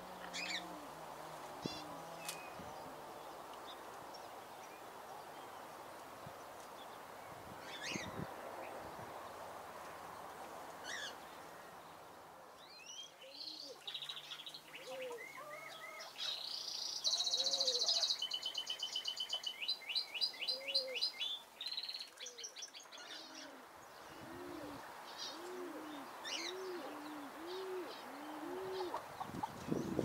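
Small aviary birds chirping, building in the middle to a dense run of rapid, high zebra finch calls. Near the end a dove coos, a string of low notes about one a second.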